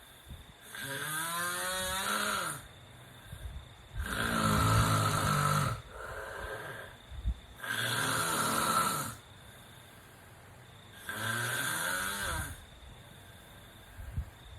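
A sleeping person snoring: four loud snores about three and a half seconds apart, some with a wavering, moaning pitch and others rougher and deeper.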